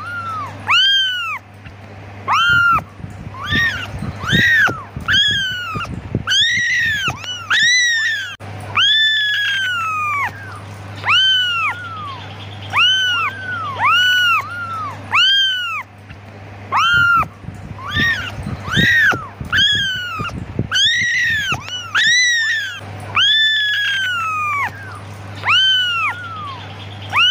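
Several young kittens meowing over and over in high-pitched cries that rise and fall, about one or two a second and overlapping at times: kittens calling for their mother. Low bumps and rustling sound under the cries twice, a few seconds in and again past the middle.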